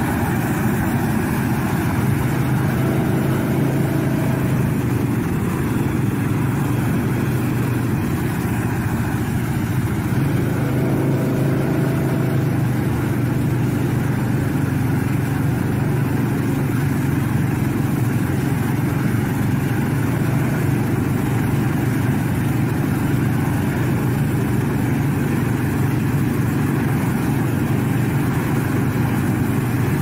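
Tractor engine running steadily as it pulls a flame weeder, a low even hum under a constant rushing noise from the lit row of burners.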